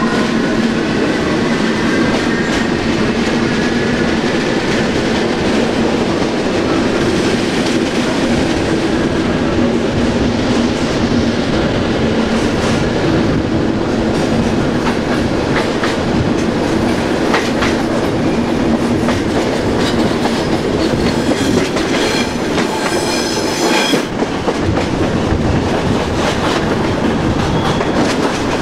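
Modernised SNCB AM80 electric multiple unit heard from inside while running: a steady hum from the traction motor drive, with a faint whine that rises slightly in pitch over the first few seconds, and wheels clattering over the rail joints. A cluster of high-pitched tones sounds for a couple of seconds near the end and cuts off suddenly.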